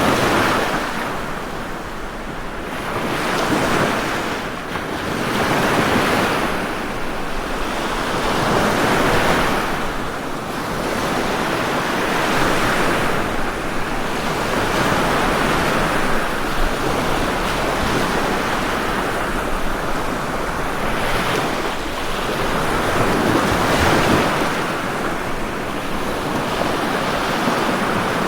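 Ocean waves surging and washing in a continuous rush, swelling every three to four seconds.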